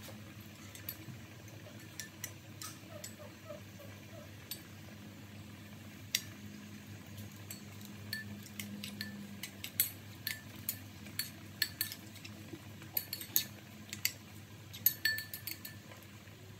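Metal spoon clinking against the side of a bowl while stirring a thin sauce. There are a few scattered clinks at first, then quick, sharp clinks from about ten seconds in.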